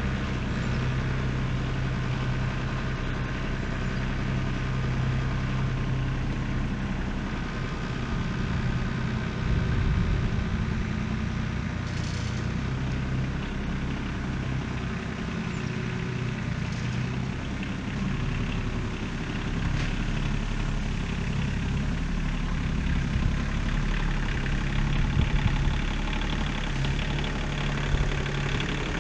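Farm tractor engine running steadily while pulling a plow through the soil to cut a shallow trench. The engine swells a little about ten seconds in and again near the end, and there is a brief click about twelve seconds in.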